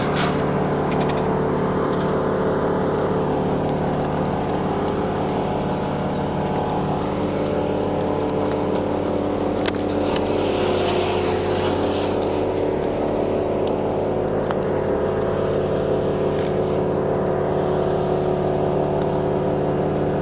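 Truck-mounted crane's diesel engine running steadily at a constant speed, with light rustling and clicks over it.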